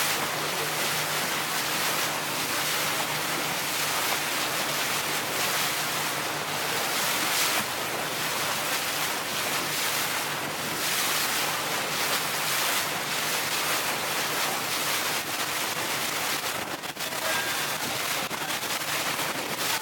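Motorboat under way: steady rush of water along the hull and wind buffeting the microphone, over a low, steady engine hum.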